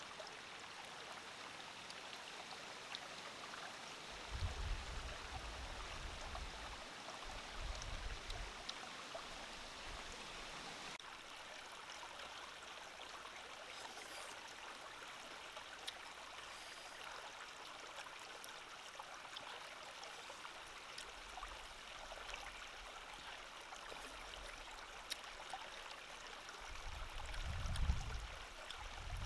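Steady rush of a running stream, with a few brief low rumbles about four seconds in, around eight seconds and again near the end.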